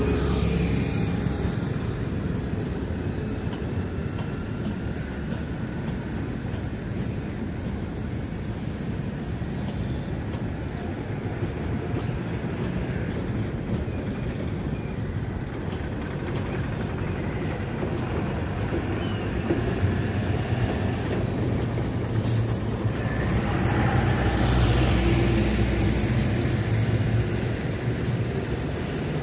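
Express train's passenger coaches rolling past on the rails as the train runs in to arrive: a steady low rumble that swells about twenty seconds in.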